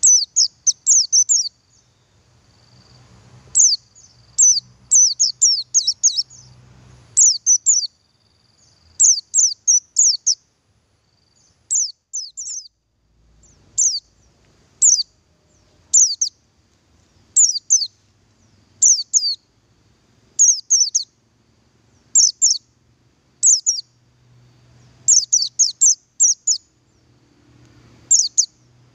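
Male buxtoni white-eye (pleci) calling: short bursts of two to five high, quick downward chirps, repeated about once a second.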